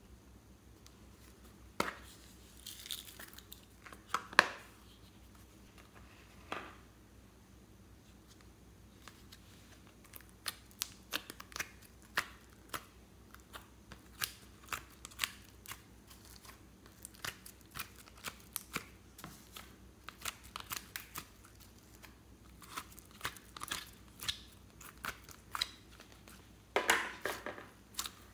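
Hands handling plastic slime containers and molds, then kneading slime: a run of small sharp clicks and crackles, with a longer crackling squish near the end as the slime is worked.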